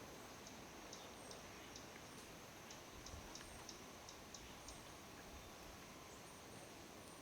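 Near silence: faint outdoor ambience with a run of short, high ticks, a few each second, that stop about two-thirds of the way through, plus a few fainter, higher chirps.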